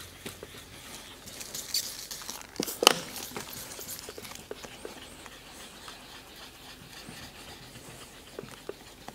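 Faint scratchy rubbing of 3000-grit sandpaper worked wet by hand over a plastic headlight lens, with scattered small clicks and one sharp click about three seconds in.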